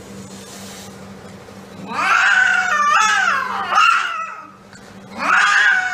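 A caged cat yowling: a long, wavering caterwaul about two seconds in, then another starting near the end. The cat is shown as an animal with rabies.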